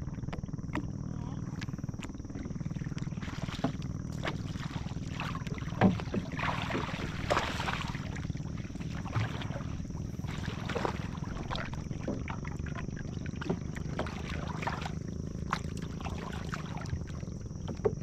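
Sea water splashing and sloshing as a man wades and lifts a tube fish trap, many short irregular splashes, busiest about six to eight seconds in, over a steady low rumble and a thin high tone.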